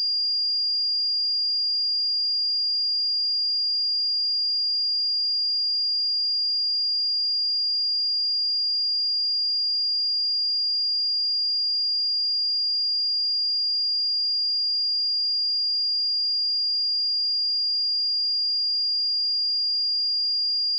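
A pure 4812 Hz sine test tone, one steady high-pitched tone held at a constant level.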